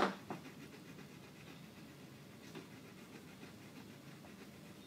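Oil pastel rubbing on paper in short repeated colouring strokes, faint and scratchy, after a light tap as the pastel meets the paper.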